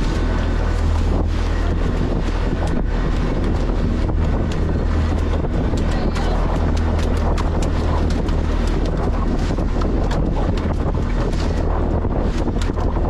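Boat engine running steadily under way, with wind buffeting the microphone and scattered small clicks.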